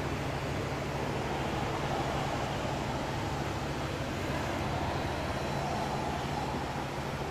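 Steady street traffic noise with a low, even hum underneath and no distinct events.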